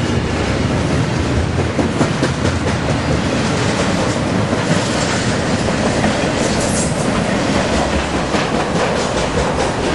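Norfolk Southern intermodal freight train of double-stack container well cars and trailer-carrying flatcars rolling past at close range: a loud, steady rumble of steel wheels on rail with repeated clicks as the wheels pass over the track.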